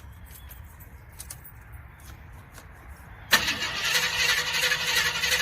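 Jeep Grand Wagoneer's starter cranking the engine for about two and a half seconds from a little past halfway in, then stopping abruptly without the engine catching. A few faint clicks come before it.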